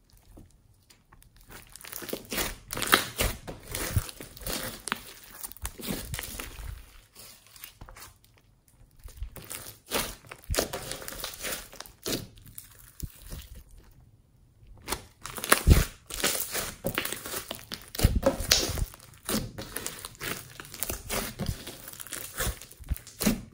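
Hands kneading and squeezing a large lump of slime mixed with foam beads: irregular sticky crackles and pops in uneven bursts, with a short lull a little past the middle.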